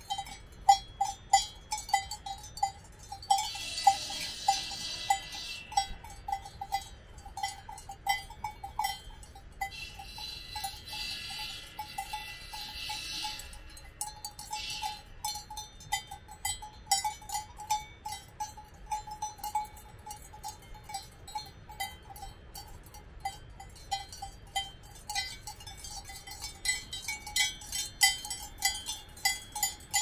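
Cowbells on grazing cows clanking irregularly as the animals move their heads, all ringing at about the same pitch. A soft hiss rises and fades twice along with them.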